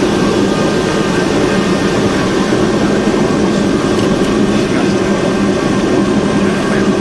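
Cessna 172's piston engine and propeller giving a steady, loud drone in flight, with no change in power.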